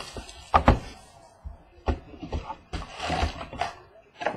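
Hands handling and opening boxes of trading cards: a few sharp knocks, with a rustle of cardboard and pack wrapper near the middle.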